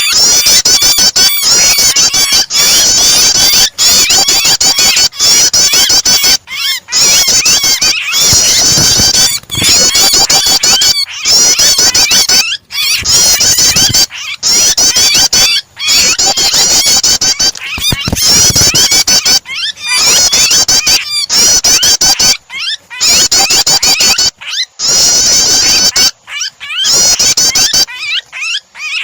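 Loud, dense, rapid chattering and chirping of prenjak (prinia) calls mixed with the squeals of a trapped bird, a looped starter recording. The calls break off briefly every second or two.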